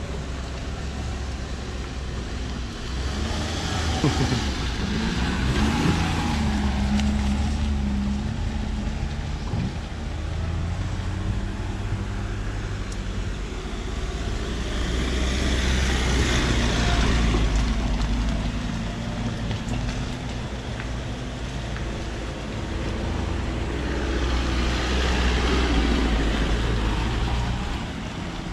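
Motorcycle riding on a rough road with its engine running steadily under road and wind noise. The noise swells and fades three times, about four, sixteen and twenty-five seconds in.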